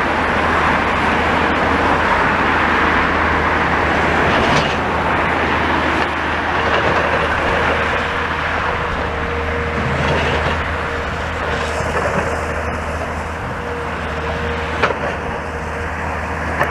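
Steady road traffic noise: motor vehicles running and passing, with a constant low hum underneath.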